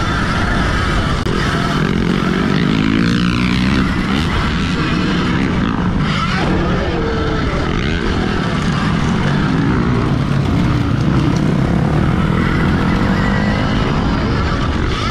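Alta Redshift MXR electric dirt bike being ridden hard, its electric motor whine rising and falling with the throttle over a constant heavy rush of wind and riding noise.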